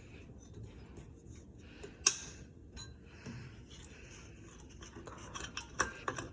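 A single sharp click about two seconds in, then a growing run of light clicks and rattles near the end.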